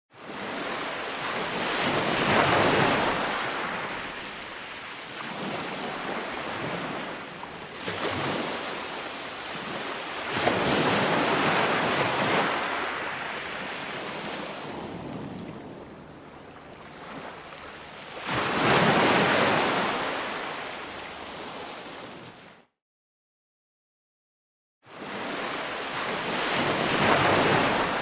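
Ocean waves breaking and washing in, swelling and ebbing in slow surges about eight seconds apart with a steady surf hiss between. Near the end the sound drops out entirely for about two seconds, then the waves resume.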